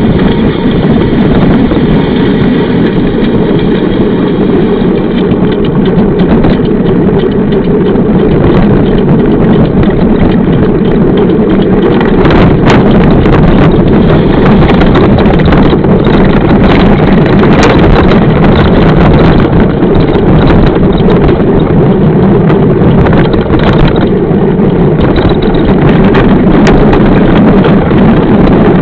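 Wind buffeting the microphone of a camera riding along on a mountain bike, a loud, steady rumble, with scattered knocks and rattles from the bike over rough ground.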